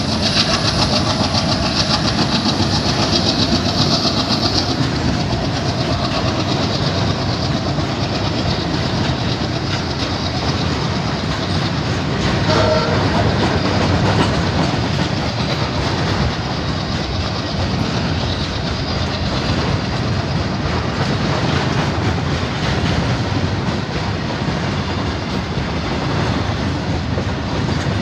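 Freight train's open wagons rolling past close by: a steady rumble with the clickety-clack of wheels over rail joints. A short high tone sounds about halfway through.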